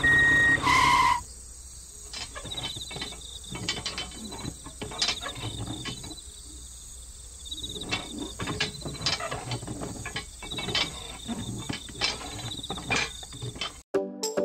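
Small clicks and taps of metal wire and plastic parts as a toy cultivator is hooked onto a miniature tractor, over steady cricket chirping. A short loud tone sounds in the first second.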